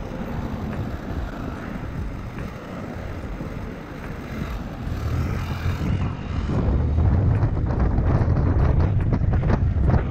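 Road traffic passing while stopped at the roadside, then, from about six seconds in, louder wind rushing over the microphone as a small motorcycle rides along the road.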